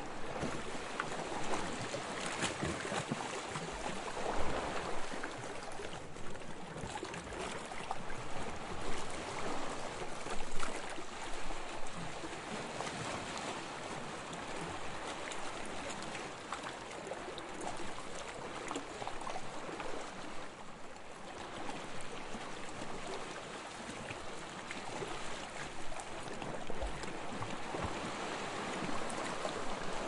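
Calm sea waves washing in: a steady rush of water that swells and eases every few seconds.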